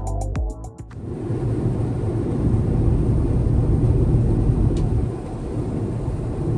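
Airbus A350-900 cabin noise: the steady low roar of the engines and airflow heard from inside the airliner, swelling a little midway and then easing. A music track cuts off just before it begins.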